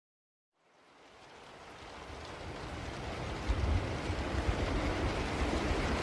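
Steady rain noise fading in from silence about half a second in, growing louder over the next few seconds, with a low rumble underneath.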